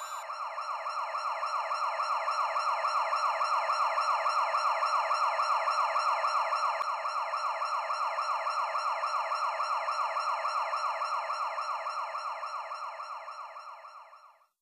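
A siren with a fast, rapidly repeating pulse. It swells in at the start, holds steady, then fades out and stops just before the end.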